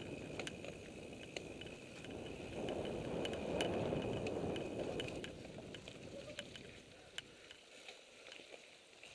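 Mountain bike running down a dirt singletrack, heard from a camera mounted on the bike: tyre and wind rumble, loudest a few seconds in and easing off near the end, with scattered clicks and rattles from the bike.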